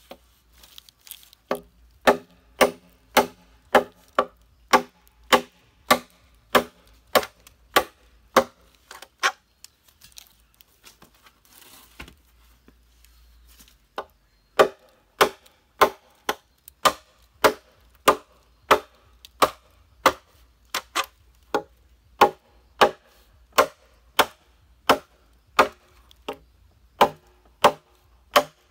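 Machete chopping into a green bamboo pole: sharp, regular strikes about two a second. They pause for about five seconds midway, then carry on at the same pace.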